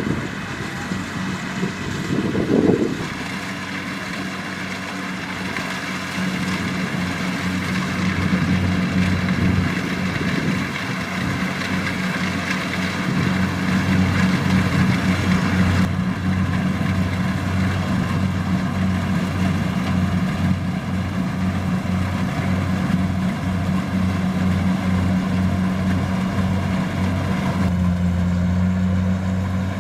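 Kubota DC-70 Plus combine harvester's diesel engine running steadily while harvesting rice, with a brief loud swell about two and a half seconds in. The engine grows louder from about six seconds in, and its note steps up slightly near the end.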